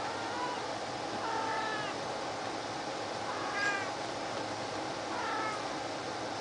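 Domestic cats meowing: four short, high calls, a second or two apart.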